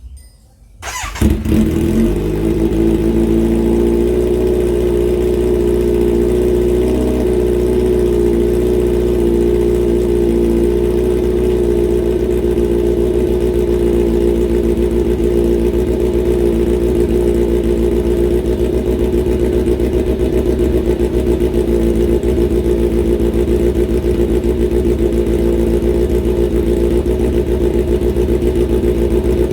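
Kawasaki Z900 SE's inline-four engine breathing through a replica Austin Racing exhaust, cold-started about a second in: it catches at once, then idles steadily.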